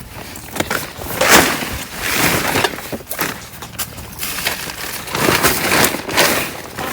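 Tent rain cover rustling and crinkling as it is handled, in several loud swells with small clicks.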